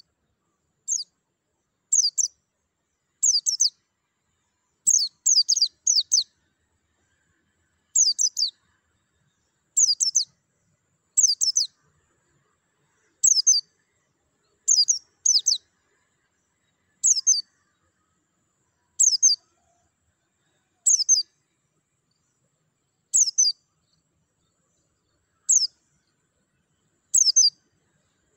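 Caged white-eye (pleci) singing short, high twittering phrases, repeated every one to two seconds, several of them doubled or tripled.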